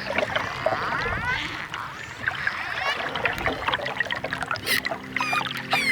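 Dolphins calling underwater: rising and falling whistles mixed with trains of echolocation clicks, and a rapid buzzing burst of pulses near the end.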